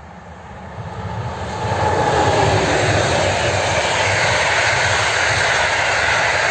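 Intercity express train hauled by an EP09 electric locomotive passing at speed: the rumble of wheels on rail and the rush of air swell over about two seconds to a loud, steady roar as the coaches go by.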